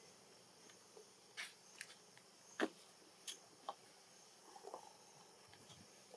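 Very quiet outdoor ambience: a faint steady high hiss with a handful of faint, scattered clicks and ticks, and a brief soft chirp about four and a half seconds in.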